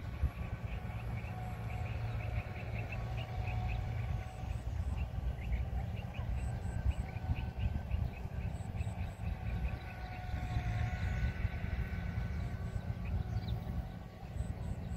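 Diesel engine of heavy farm machinery running steadily, with a rapid series of short high chirps over it in the first half.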